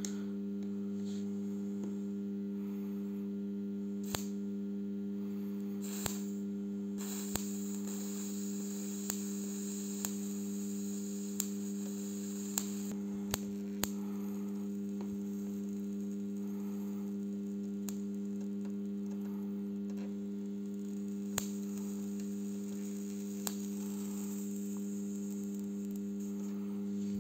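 Microwave-oven-transformer spot welder humming steadily while energised, with about a dozen short sharp snaps as the copper probe tips touch a steel wire-mesh tea strainer and spark, most of them in the first half.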